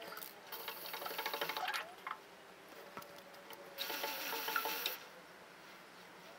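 Aerosol can of moisture-displacing spray hissing in two bursts of about a second each, sprayed onto a motorcycle chain.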